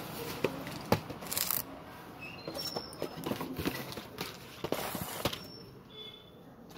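Background sounds: scattered light clicks and knocks, two short bursts of rustling noise about one and a half and five seconds in, and a few brief high chirps.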